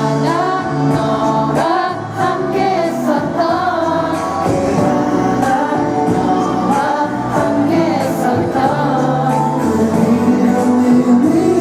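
Pop song with a vocalist singing over a backing track with a steady bass line.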